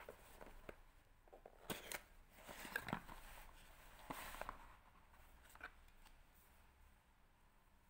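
Quiet handling noises: a few light clicks and short rustles in the first few seconds, then near silence.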